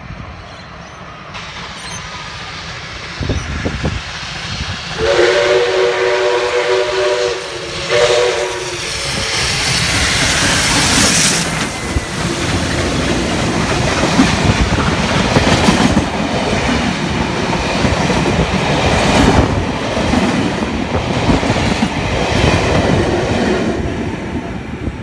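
A steam-hauled passenger train, led by steam locomotive 5917, sounds a long chime blast and then a short one as it approaches. It then passes close by, its steam working loudly at first, with the carriages clattering over the rail joints after it.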